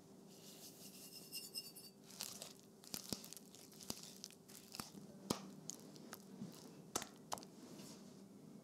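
Granulated sugar tipped from a metal measuring cup into a glass bowl of cream cheese: a fine, sparkly trickle of grains for about the first two seconds. Then a silicone spatula stirs the gritty sugar into the cheese with quick scrapes and sharp clicks against the glass, which stop near the end.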